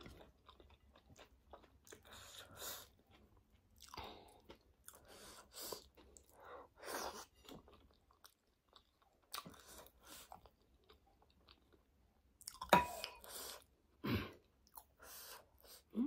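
Close-miked chewing of a mouthful of rice and vegetable curry, coming in short bursts with pauses. About three-quarters of the way through, a ladle clinks against the serving bowl with a brief ring.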